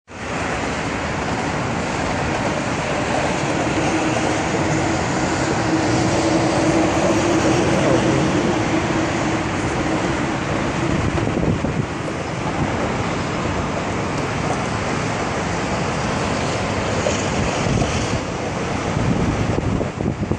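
Steady roar of highway traffic heard across a river, the even wash of tyres and engines on an elevated expressway. One vehicle's droning hum stands out from about three to ten seconds in.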